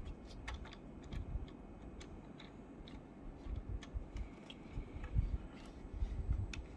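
Hands handling a 1/18 scale diecast model car: scattered light clicks and ticks as fingers grip and turn the body, with irregular low handling bumps.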